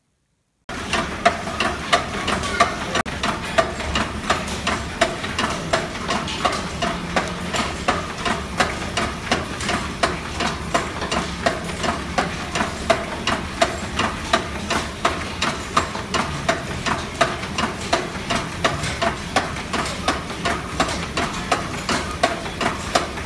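Steam-driven line-shaft workshop machinery running, a steady mechanical din with a regular knocking beat about twice a second.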